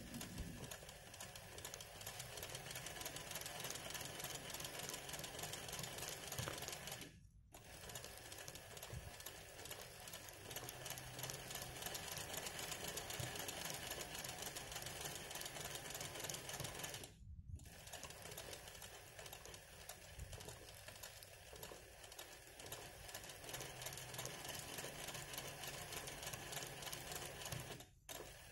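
Sewing machine running steadily for hand-guided free-motion embroidery, the needle stitching rapidly through the hooped cloth. It stops briefly about seven seconds in, again about seventeen seconds in, and once more near the end.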